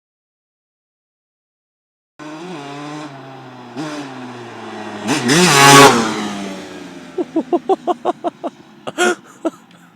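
Kawasaki KX250 two-stroke dirt bike engine revving as it is ridden. The pitch rises and falls and is loudest about halfway through. Near the end comes a quick run of short bursts, about four a second. The sound begins only after about two seconds of silence.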